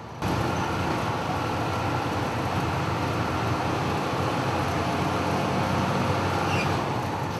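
Steady road and engine noise heard from inside a moving vehicle on a highway, an even rumble and hiss that starts abruptly and cuts off at the end.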